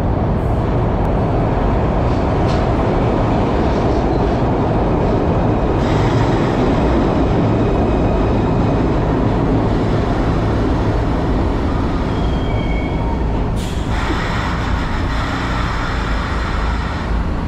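1982 Kawasaki B-IV electric subway train pulling into a station and slowing to a stop, a steady rumble of wheels and motors. Brief high squeals come about twelve seconds in, and a sudden hiss starts just before fourteen seconds.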